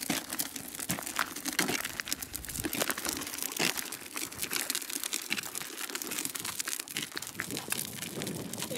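Plastic wheels of a child's push-handle tricycle rolling over gritty, icy pavement, with footsteps: a dense, irregular crackle of small gritty clicks and crunches.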